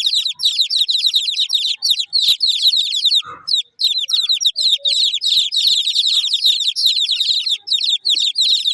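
Domestic chicks peeping, many at once: a dense stream of short, high, falling peeps that overlap, with a brief break about three seconds in.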